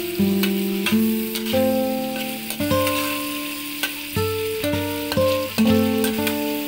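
Meat and chilies sizzling in hot oil in a wok, with short scrapes or taps of stirring. Instrumental background music plays over it, a run of plucked-sounding notes that each start sharply and fade.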